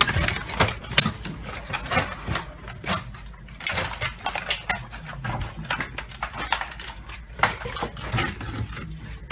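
Footsteps crunching over brick rubble and loose debris, with broken masonry and other hard fragments knocking and clattering in a quick, irregular run of clicks and scrapes.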